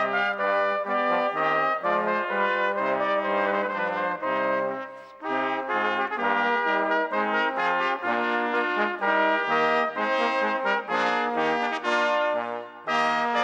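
Brass instruments, trombones and trumpets, playing a melody in sustained notes, with short breaks between phrases about five seconds in and near the end.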